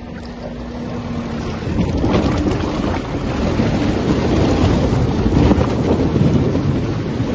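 Mahindra Scorpio-N SUV driving through a shallow rocky river: tyres churning and splashing water over a low engine hum, the splashing growing louder from about two seconds in. Wind buffets the microphone.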